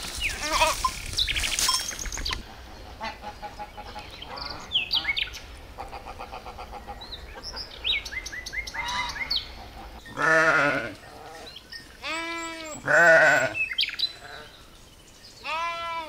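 Sheep bleating: a few long, wavering calls in the second half, the loudest about 13 seconds in. Earlier there are small bird chirps.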